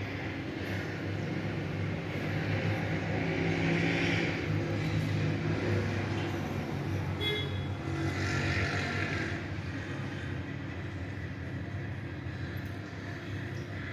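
Steady motor-vehicle noise from a running engine and passing traffic, swelling several times, with a brief high-pitched tone about seven seconds in.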